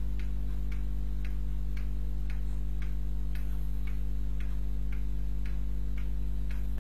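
Steady low hum with faint, regular ticking about twice a second.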